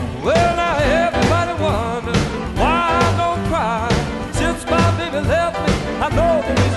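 Live blues band playing: a singer holds long, wavering notes with vibrato over electric guitar, bass and drums.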